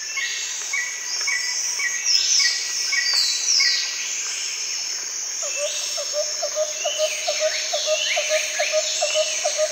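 Nature ambience of several birds calling: a short high note repeated about twice a second and quick falling whistles, joined about halfway by a fast run of short low chirps, about three a second. A steady high-pitched hiss runs underneath.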